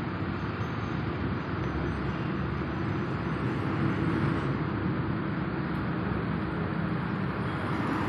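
Steady outdoor background noise with a low, even hum. There are no distinct events.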